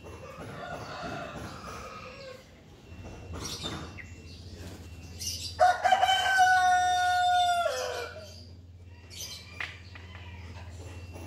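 A rooster crows once, a single long call of about two seconds, steady in pitch and dropping at the end.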